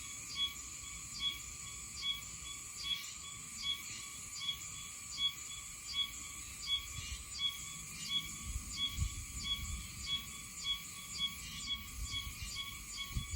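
Oshima cicada (Meimuna oshimensis) calling in short, evenly spaced pulses, a little over one a second, quickening to about two a second about two-thirds of the way through, over a steady high insect hum.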